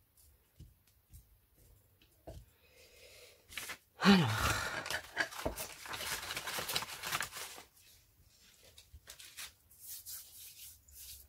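Sheets of paper rustling and crinkling as they are picked up and handled, loudest for about three seconds from roughly four seconds in, with scattered light taps and softer rustles around it.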